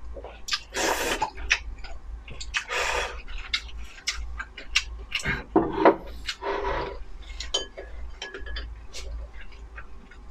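Close-miked eating of kimchi-flavoured instant noodles: four short slurps, with wet chewing clicks in between.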